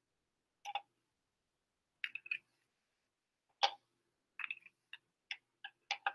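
Small plastic clicks and taps of microcentrifuge tubes being handled and seated in the rotor of a benchtop microcentrifuge: scattered clicks, a louder one a little past the middle, and a quicker run of light clicks near the end.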